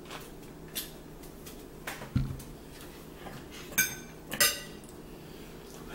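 Cutlery clinking on plates: a few sharp clinks, the two loudest about half a second apart in the second half, each with a brief ring, and a dull knock on the table about two seconds in.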